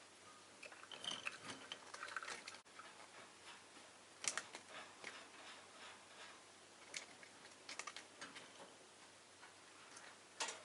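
Faint, irregular clicks and taps from a rosy-faced lovebird moving and pecking about its cage, with a couple of soft chirps between one and two seconds in.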